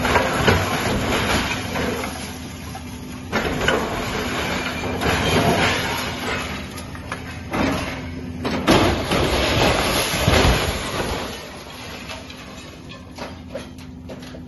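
Hidromek excavator demolishing a small stone-walled hut: repeated loud bursts of crashing, grinding and screeching as stone, timber and corrugated sheet-metal roofing are torn down, over the machine's steady engine hum. It quietens in the last few seconds as the roof lies collapsed.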